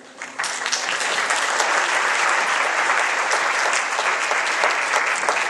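Audience applauding, many hands clapping together, breaking out a moment in and holding steady.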